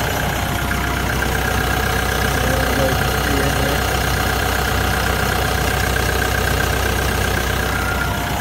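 Turbocharged Deutz four-cylinder diesel of a TYM 654 tractor idling steadily.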